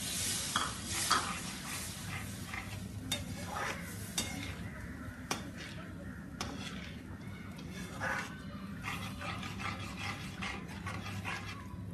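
A spoon stirring a tomato kurma in a pan, with irregular scrapes and clinks against the pan, over a steady low hum.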